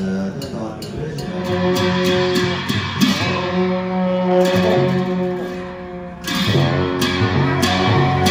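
Tibetan Buddhist monastic ritual music: frame drums and cymbals beating a steady pulse under long held droning notes. The beat thins out in the middle and picks up again after about six seconds.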